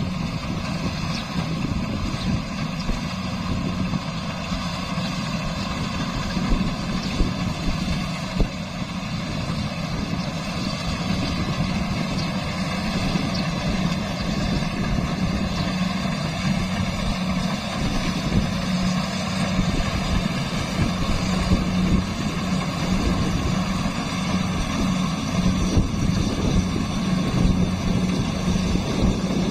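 Rice combine harvester's diesel engine running steadily while it cuts rice, a constant hum with a steady tone, growing slightly louder in the second half as the machine comes closer.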